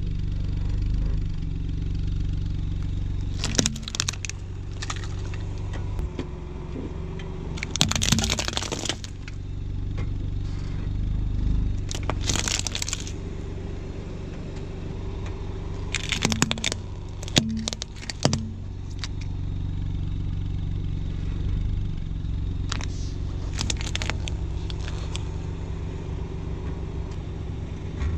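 A car engine running low and steady while its tyre rolls over a plastic toy truck on asphalt, the plastic cracking and crunching under the wheel several times. The longest crunch comes about eight seconds in.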